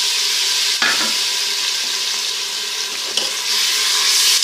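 Chopped tomatoes sizzling in hot ghee with fried onion and ginger-garlic paste as they are stirred in the pan: a steady hiss, with a couple of short knocks of the spoon.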